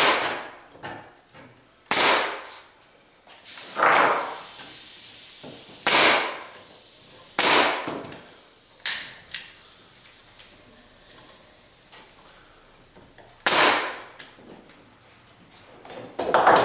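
Brad nailer firing 2.5-inch brads into workbench rails: several sharp shots a couple of seconds apart, with a longer pause before the last ones.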